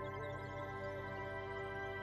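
Background music with sustained notes, laid over the footage.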